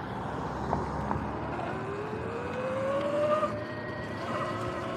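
Sur-Ron X electric dirt bike's motor and chain drive whining, rising in pitch as the bike speeds up, over tyre and wind noise; the chain and sprockets are newly replaced. Two sharp knocks around a second in.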